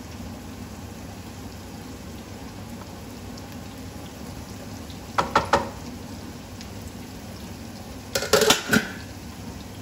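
A spoon clanking against a cooking pan as the greens are stirred, in two short bursts about five and eight seconds in, over a steady low hum.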